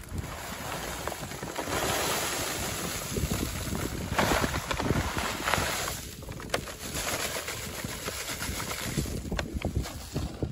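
Wind buffeting the microphone, mixed with the rustle of a paper bag as cigarette butts are shaken out of it onto sand. The noise is heaviest from about two to six seconds in, then drops and turns patchier.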